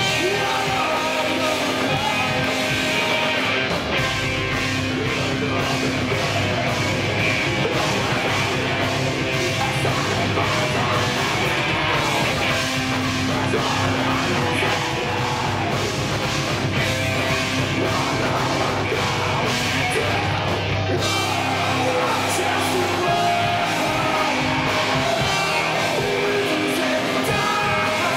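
Live rock band playing loud and without a break: distorted electric guitar, drums and a vocalist singing into a microphone.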